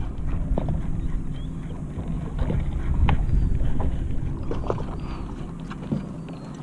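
Boat on open water with its motor humming steadily and wind buffeting the microphone, with occasional knocks.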